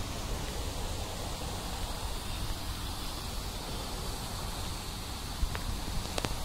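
Wind on the microphone: a steady low rumble under an even hiss, with two faint clicks near the end.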